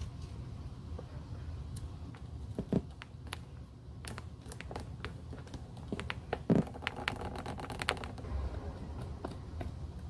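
Fingers handling and pressing a thin strip of black leather around a high-heeled shoe's heel: scattered small clicks and crinkles of the leather, two soft knocks, and a short squeaky rub a little past the middle.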